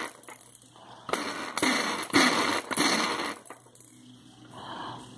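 Hands handling a plastic toy mailbox: four rustling, scraping noises in the middle, each about half a second long.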